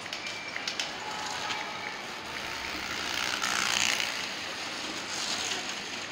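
Handbikes rolling over cobblestones amid street noise. The rumble of the tyres swells as one passes close about three and a half seconds in, and again a little after five seconds.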